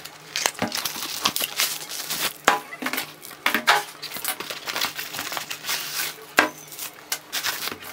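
Packaging being handled as copper water bottles are slid out of cardboard boxes: irregular crinkling of the bottles' clear plastic wrap and rustling cardboard, with scattered small knocks.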